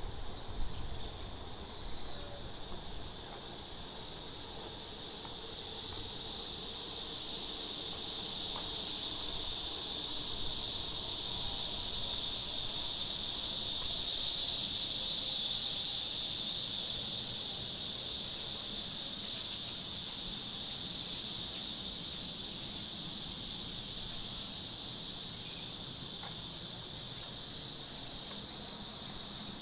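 Cicadas singing in a dense, high-pitched chorus that swells over the first ten seconds or so, peaks about halfway, then slowly fades.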